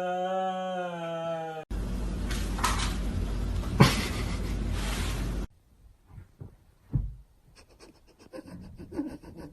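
A dog howling in a long wavering note that cuts off abruptly about two seconds in, followed by about four seconds of loud rushing noise, then only faint small sounds.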